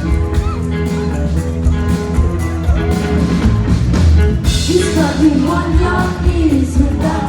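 Live rock band playing loudly, with heavy bass, drums and guitar. About halfway through there is a crash, after which a wavering melody line comes in over the band.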